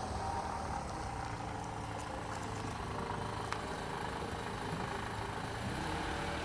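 An engine idling steadily, with one short tick about three and a half seconds in.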